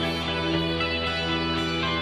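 Instrumental music between sung lines: sustained guitar chords over a steady bass, with no voice.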